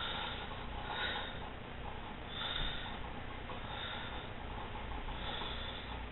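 A person breathing close to the microphone: a soft breath about every second, over a steady low hum and hiss.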